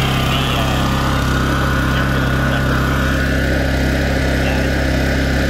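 Honda EU2200i inverter generator's single-cylinder four-stroke engine running steadily, an even low hum that holds the same pitch throughout.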